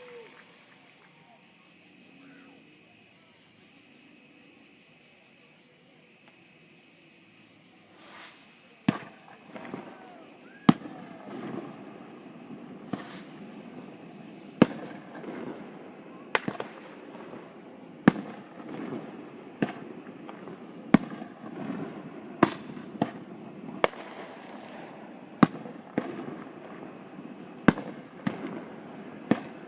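Fireworks heard from across a lake: after a quieter stretch, a run of sharp bangs starts about nine seconds in and goes on every second or two, with crackling between them.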